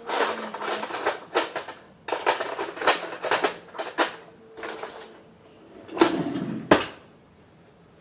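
Objects being handled, with quick bursts of rattling clicks, then two sharp knocks about six and seven seconds in.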